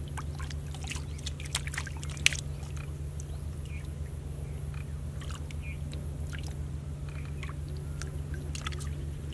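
Scattered small splashes and clicks of a catfish stirring in a shallow pool of muddy water, with one sharper click a little over two seconds in, over a steady low hum.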